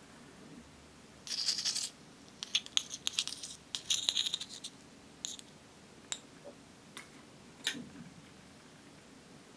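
Metal spatula scraping pink cosmetic cream out of a small metal tin, heard as a run of scrapes and clicks. A few single clicks follow before it goes quiet.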